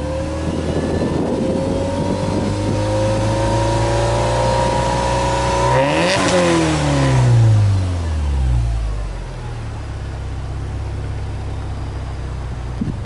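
Subaru EJ20 turbocharged flat-four exhaust note at the twin tailpipes of a stationary car, free-revved: the revs climb gradually for several seconds, the throttle is let go about halfway through, and they fall back to a steady idle within about three seconds.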